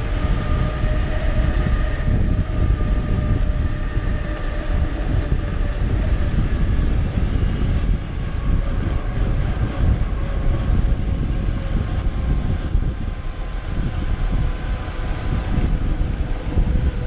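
Wind buffeting the microphone and tyre hiss from a mountain bike coasting fast downhill on a wet asphalt road, a loud, steady, gusting rush.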